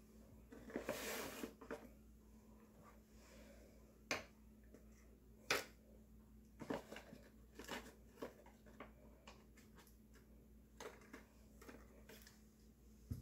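Scattered light clicks and clacks of a plastic grabber tool gripping and handling a small plastic toy bin, with a brief rustle about a second in.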